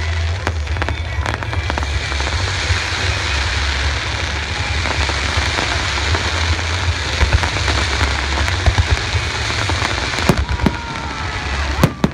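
Fireworks display with a dense, steady crackling like heavy rain over a continuous low rumble of bursts, and a few sharper bangs near the end.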